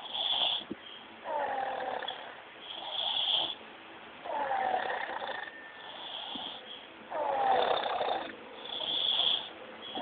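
A sleeping young child snoring, about three slow breaths: each snore is a pitched sound of about a second that falls slightly in pitch, alternating with a shorter hissing breath.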